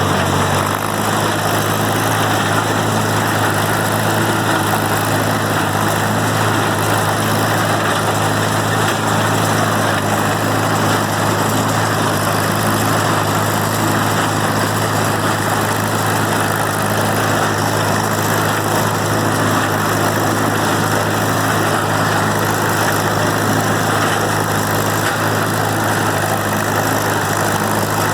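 New Holland Super 77 hay baler and its drive engine running steadily: a constant engine hum under a dense mechanical clatter.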